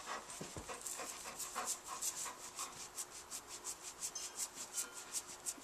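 Golden retriever panting quickly and evenly close to the microphone, about four or five breaths a second.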